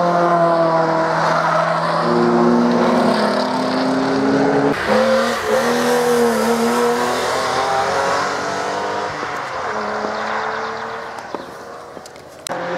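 Cars driven hard past the trackside with their engines at high revs: first a steady engine note. After a cut, a yellow BMW E36 coupe slides through a corner with its engine note wavering in pitch, then fades as it drives away. A new engine note cuts in abruptly near the end.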